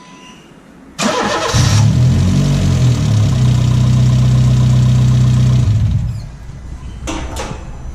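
Honda City 1.5 i-VTEC four-cylinder engine with a straight-pipe HKS exhaust being started: a brief crank about a second in, it catches and flares, then settles into a loud steady idle before stopping about six seconds in.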